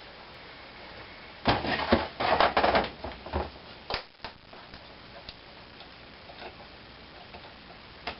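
Small metal parts and a hand tool clicking and rattling on an air rifle's trigger assembly as a spring is worked off: a dense run of clicks for about two seconds, a sharp click, then a few light ticks.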